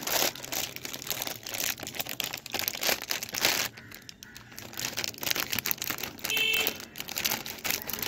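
Crinkly plastic snack-style packet crackling and rustling as it is handled and pulled open by hand, in dense irregular crackles with a short pause about four seconds in.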